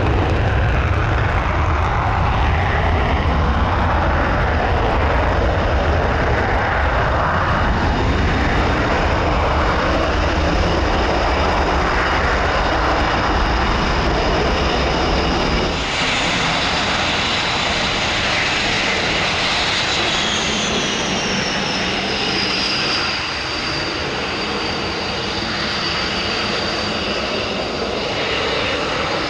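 Panavia Tornado's twin RB199 turbofans roaring on an afterburner takeoff, with a heavy deep rumble. About halfway through it changes abruptly to a taxiing Tornado's engines with a steady high whine, one whining tone falling a little in pitch and then holding.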